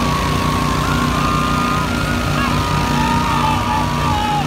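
Small ATV engines of a six-wheeled amphibious ATV and a four-wheeler running hard under load, pulling against each other in a strap tug-of-war. The steady drone carries thin high whines that glide up and down.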